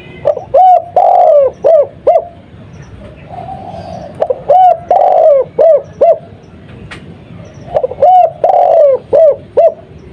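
Spotted dove (tekukur) of the Madura 'kuk 2' song type, cooing loudly. It gives three song phrases about every three and a half seconds, each a couple of short notes, one long drawn coo, then two clipped 'kuk' notes.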